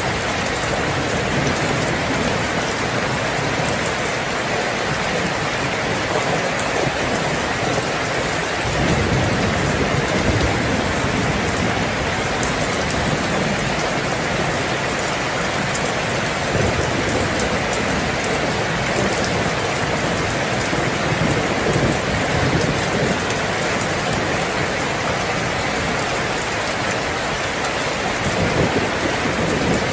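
Heavy rain falling steadily, with low rolls of thunder swelling about nine seconds in and again near the end.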